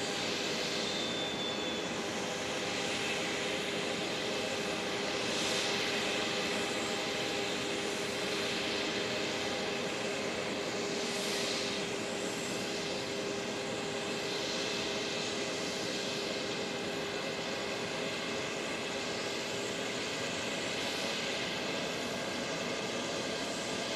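Airbus A330-200's jet engines running at low thrust as the airliner moves on the ground: a steady hiss with a held whine, swelling briefly twice.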